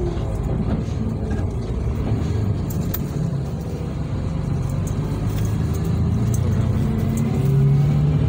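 Bus engine and tyre noise heard from inside the passenger cabin, a steady low hum with the engine tone growing louder near the end.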